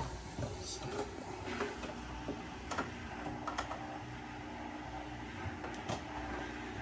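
Fabric rustling and a few light clicks and taps as a garment is worked into the hoop of a computerised embroidery machine. A faint steady hum comes in about halfway through.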